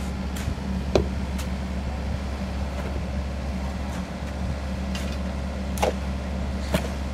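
Kobelco SK50 mini excavator's diesel engine running steadily with a low drone, with a sharp knock about a second in and two more near the end.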